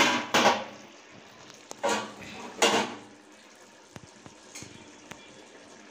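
Aluminium pot and lid knocking together, four sharp metallic knocks in the first three seconds, then chicken masala bubbling faintly in the uncovered pot.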